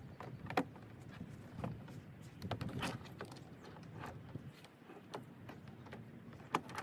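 Plastic car door trim panel being handled and lined up against the door: a scattering of irregular light clicks and knocks, the sharpest about half a second in and another near the end.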